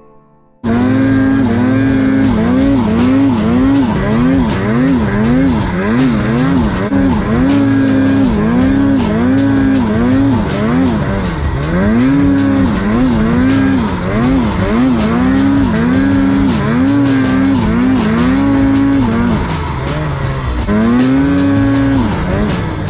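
Ski-Doo Summit Expert turbo snowmobile's turbocharged 850 two-stroke engine running hard through deep powder, cutting in suddenly under a second in. Its pitch rises and falls again and again with the throttle, easing off briefly near the end before climbing again.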